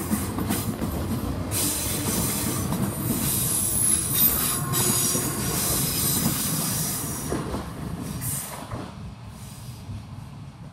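ScotRail electric multiple unit running past close by, wheels rumbling on the rails, with high-pitched hissing in two stretches. The noise fades away about nine seconds in as the train pulls clear.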